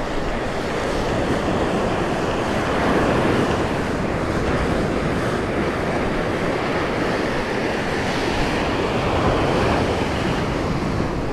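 Gulf surf washing onto the beach in a steady rush that swells and eases slowly, with wind buffeting the microphone.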